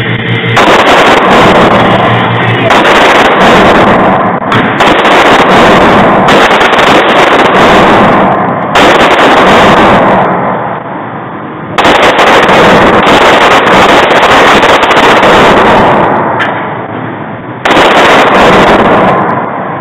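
Springfield XD-9 9 mm pistol firing repeated shots in an indoor range, the microphone overloaded so the shots smear into long stretches of loud, distorted noise, with two short lulls.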